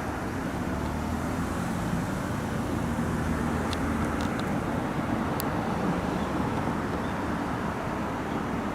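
Steady low rumble of outdoor background noise, like distant engine or traffic noise, with a few faint clicks partway through.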